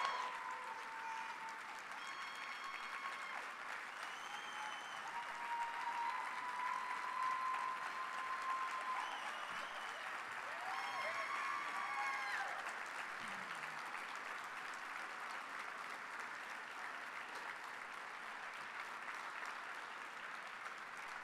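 Large audience applauding steadily, with a few long, held calls rising over the clapping in the first half.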